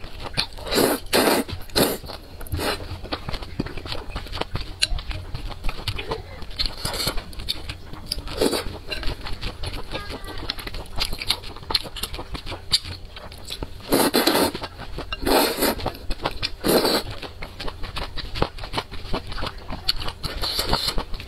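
Close-miked eating of thick noodles in sauce: several short, loud slurps of noodles being sucked in, with wet chewing and lip smacks in between.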